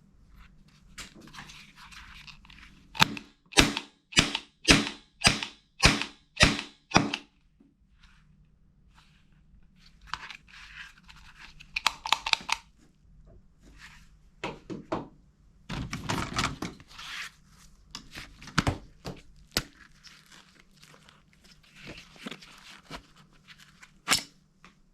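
A toy gun shot or clicked about eight times in quick succession, roughly two a second. Then come rustling handling noises and a few scattered clicks, with one sharp click near the end.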